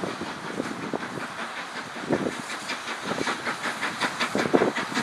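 Small steam tank locomotive working a short train, its exhaust chuffing in even beats of about four a second over a steady hiss of steam, getting louder as it comes closer.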